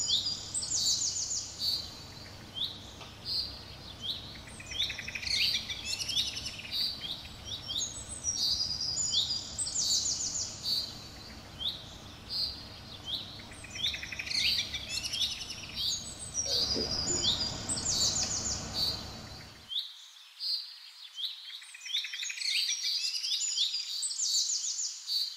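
Birds chirping, with repeated high chirps and quick trills. A low background hum runs under them and cuts off suddenly about twenty seconds in.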